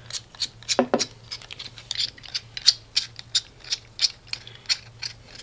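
A gimbal controller's screw-on fitting being turned by hand, giving short, sharp squeaky clicks about three or four a second as the thread is tightened. There is a brief duller knock about a second in.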